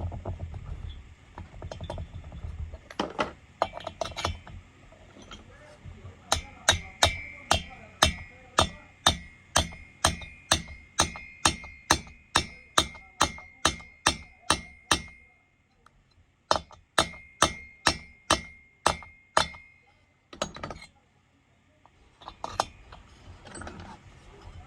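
Hammer blows on a metal tool being driven into the intake valve guide boss of an air-cooled cylinder head, evenly paced at about two strikes a second with a metallic ring. The blows come in two runs with a short pause between, after a few scattered taps.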